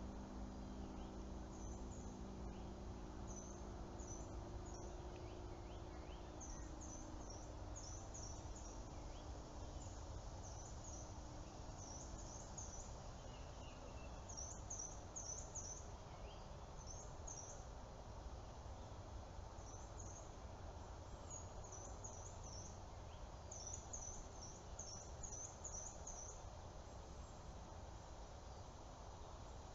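Small birds chirping in short clusters of high, falling notes every few seconds over a low steady rumble, with a few faint soft clicks now and then.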